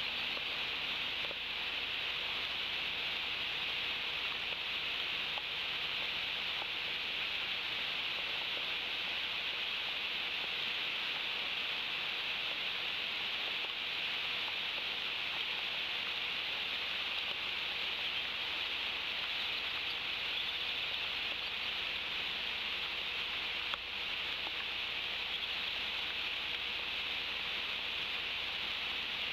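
Steady hiss of rain falling on the nest and surrounding trees.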